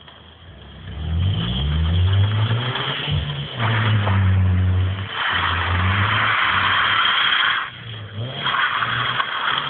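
Turbocharged Ford Fiesta's engine revving up hard from about a second in as the car drifts, its tyres scrubbing and squealing in two long stretches from about five seconds in and again near the end.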